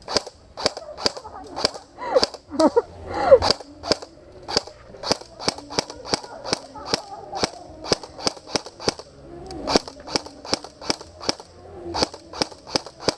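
Airsoft gun fire: sharp single shots in a long, steady string, about two to three a second. A person shouts briefly about two to three seconds in.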